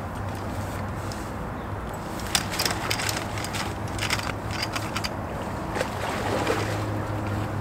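A hooked salmon splashing and thrashing at the water's surface as it is scooped into a landing net: a burst of sharp splashes and knocks about two to five seconds in. A steady low hum runs underneath.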